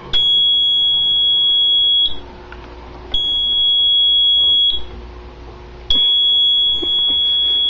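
Piezo sounder of a fire alarm system beeping one steady high tone, three long beeps of about one and a half to two seconds each with about a second between them.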